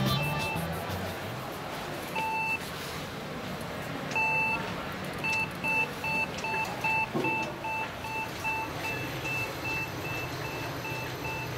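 Electronic signal beeper of a KONE EcoDisc traction elevator: three separate beeps, the third a little longer, then a fast, even run of short beeps, about three a second, over a faint steady hum.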